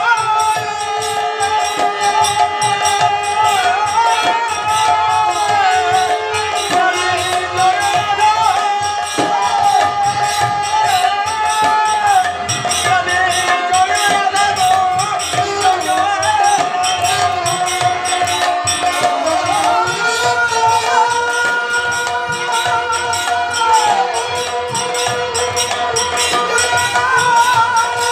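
Live Bengali harinam sankirtan. A harmonium plays a sustained melody while a khol barrel drum and kartal hand cymbals keep a steady beat, and a man sings.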